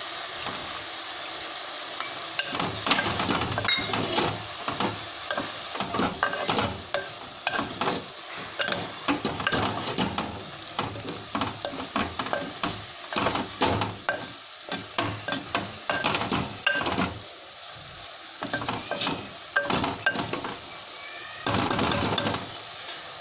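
Wooden spoon stirring chopped leafy greens in a clay cooking pot, with irregular scrapes and knocks against the pot over a sizzle from the hot pan. For the first couple of seconds there is a steady sizzle as a little milk is poured onto the greens.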